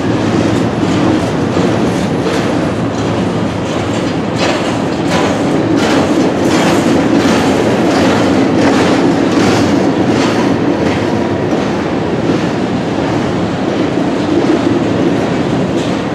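CSX Q501 freight cars rolling past with a steady rumble, their wheels clacking over rail joints about twice a second.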